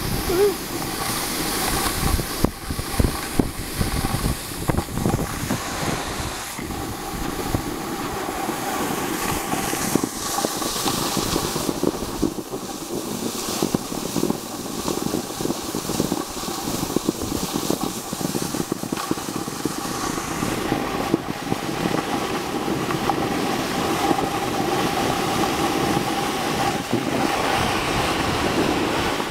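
Wind rushing and buffeting over the microphone and a snowboard sliding and scraping over snow during a downhill run, with a faint steady whistle running through it.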